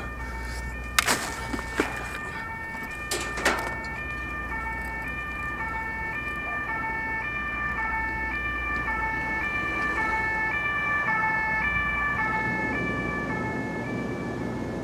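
A two-tone emergency-vehicle siren, alternating evenly between a high and a low note about once a second. A few sharp knocks come in the first few seconds.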